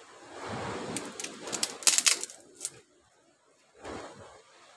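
Waves washing on the shore, broken by a quick run of sharp clicks and cracks lasting about a second and a half; the sound then drops out almost completely for about a second before the surf comes back.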